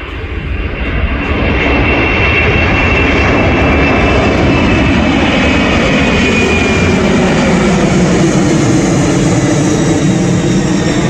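Boeing 747-400F four-engine jet climbing out at takeoff thrust, passing overhead. The loud jet rumble builds over the first second or two and then holds, with a high engine whine that slowly drops in pitch as the aircraft goes by.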